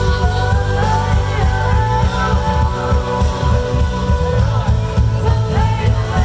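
Live band playing through outdoor PA speakers: a singer holding long sung notes over guitar and a heavy bass line.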